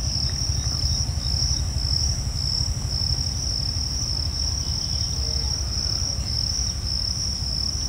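A continuous, high insect trill, typical of crickets, steady throughout, over a constant low rumble.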